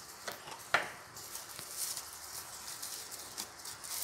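Clear plastic bag crinkling and rustling as a small TV box wrapped in it is picked up and handled, with a sharp tap about three quarters of a second in.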